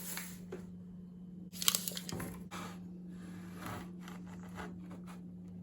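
Handling noises: scattered rustling, scraping and light knocks, with a louder clatter a little under two seconds in, over a steady low hum.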